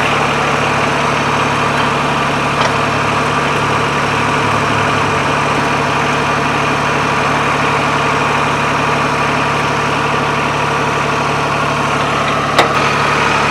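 Branson 2205h compact tractor's diesel engine idling steadily, with one sharp knock about a second before the end.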